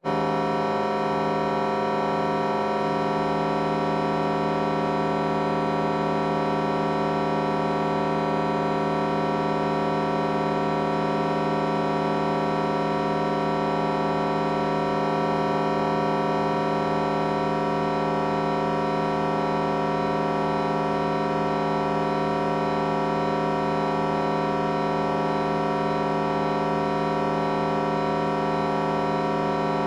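Heavily processed audio: many pitch-shifted copies layered into a dense, droning chord through a vocoder effect, harsh and cacophonous. It holds steady and loud, with only a small shift in the bass in the first few seconds.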